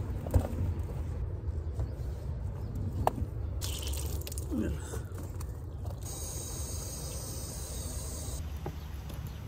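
Garden hose being connected at an outdoor spigot: a couple of sharp clicks, then water hissing as it sprays from the leaking hose connection for several seconds, cutting off suddenly about eight seconds in. A steady low rumble lies underneath.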